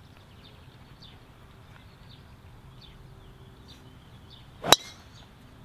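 Golf driver striking a teed ball: one sharp metallic crack with a brief ring at impact, nearly five seconds in.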